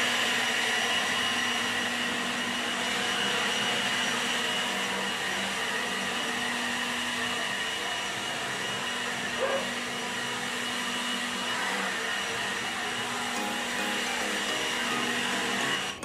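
Handheld leaf blower running steadily, blowing leaves and pet hair off paving: a constant rush of air with a high motor whine over it.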